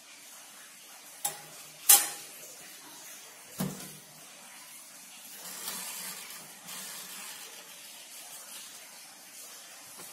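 Small electric toaster oven being loaded and shut: three sharp metal clacks in the first four seconds, the loudest about two seconds in, as the parts go onto the rack and the door closes. Around six seconds in comes a softer scrape of the control knob being turned.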